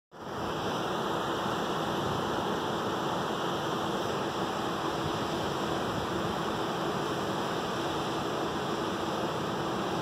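Waterfall and river rapids running over rocks: a steady rush of falling water, with a faint steady hum underneath.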